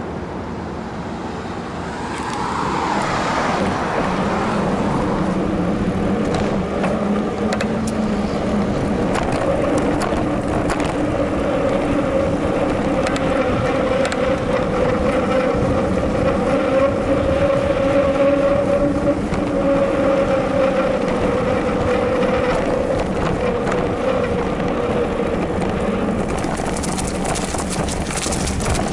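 Mountain bike riding noise: a steady whirring hum from the moving bike that drifts slightly in pitch with speed, with scattered clicks and rattles from bumps in the path. It grows louder about two seconds in as the bike picks up speed.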